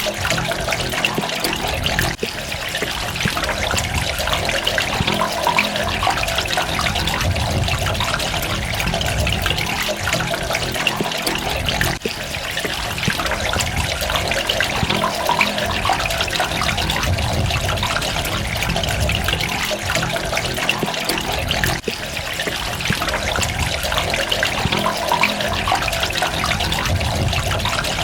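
Water running and trickling steadily, an even splashing hiss with fine droplet sounds, dipping briefly about every ten seconds.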